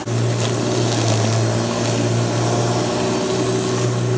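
Corded electric rotary lawn mower running steadily as it is pushed over grass: a strong, even motor hum over the rush of the spinning blade. It stops abruptly at the very end.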